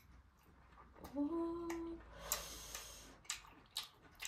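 A person gives a short, held 'mmm' hum of approval about a second in, tasting a mouthful of chow mein. It is followed by soft eating noises: mouth clicks and smacks, a few sharp ones.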